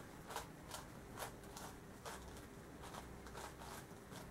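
A Yuxin Little Magic megaminx being turned quickly by hand: faint, irregular plastic clicks of its faces turning, several a second. The puzzle is straight out of the box, with no setup done to it.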